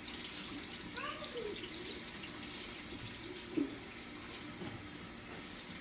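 Kitchen tap running steadily into the sink as celery is rinsed under it, with a brief knock about three and a half seconds in.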